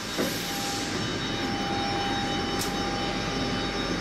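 CNC wood lathe running in rotary mode: a steady mechanical hum with a thin, steady whine that sets in just after the start and fades near the end, and one brief tick a little over halfway.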